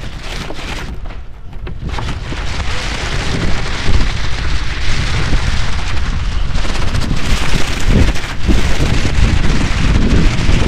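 Wind buffeting the microphone over a steady hiss of splashing water. It grows louder about two seconds in, with a few low thumps of wind buffeting.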